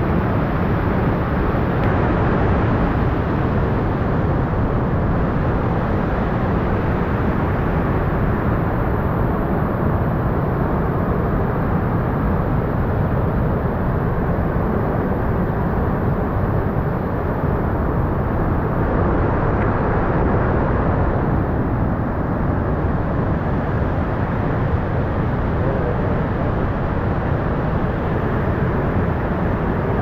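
Large waterfall with a steady rushing roar of falling water.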